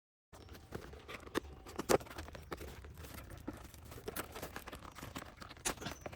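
Hands unpacking a toy from its cardboard box and plastic packaging: scattered clicks, taps and rustles, with one sharper knock about two seconds in.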